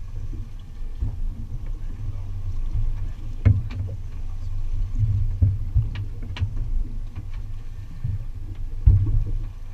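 Steady low rumble aboard a center-console fishing boat at sea, with a few short sharp knocks about three and a half and six seconds in.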